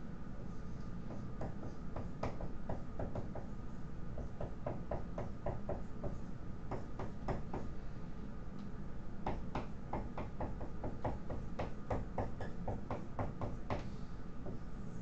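Marker writing on a whiteboard: rapid, irregular clusters of short taps and scratches as each stroke is drawn, over a faint steady room hum.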